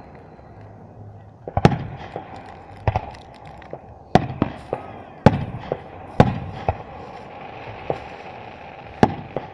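Aerial fireworks exploding overhead: a string of about nine sharp bangs at irregular intervals of roughly a second, the first about a second and a half in, several trailing off in a short echoing rumble.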